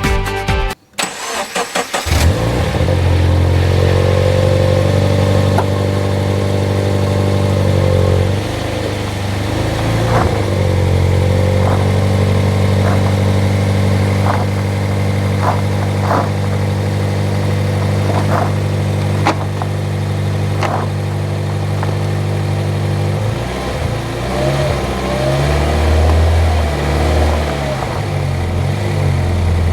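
Toyota 86 / Subaru BRZ flat-four engine starting about two seconds in, then running steadily at a constant idle. Its note becomes uneven in the last several seconds.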